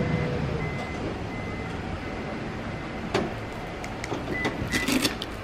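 Steady low hum and hiss of an underground parking garage, with a few sharp clicks or knocks about three seconds in and again near the end.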